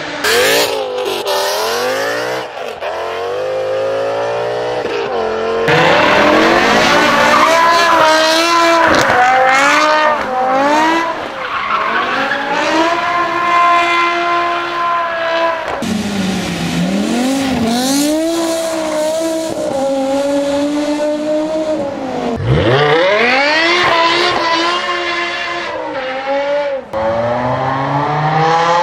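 BMW E60 M5's S85 V10 engine revving hard and accelerating, its pitch repeatedly climbing and dropping with the gear changes and throttle. Tyres squeal through a burnout.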